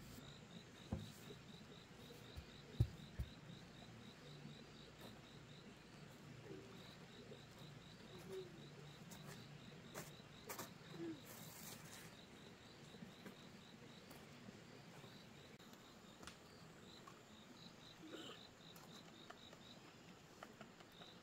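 An insect chirping steadily outdoors, short high pulses at about three a second, against faint background quiet. A few sharp knocks stand out in the first few seconds.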